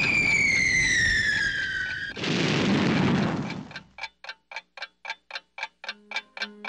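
Trailer sound effects: a falling whistle like a dropping bomb, gliding down in pitch, then an explosion boom about two seconds in that dies away, all over a clock ticking about four times a second. Low music notes come in near the end.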